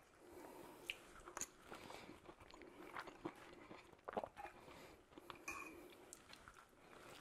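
Faint chewing with scattered small clicks and ticks, close to the noise floor.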